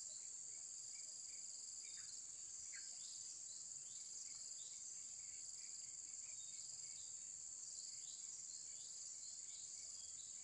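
A steady, high-pitched insect chorus, with short chirps scattered through it.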